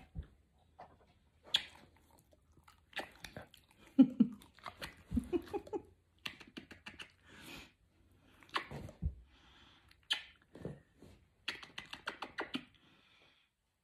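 Kissing smacks, lips pressed to a dog's cheek, coming in quick clusters of short wet pops. A brief pitched voice-like sound comes about four seconds in.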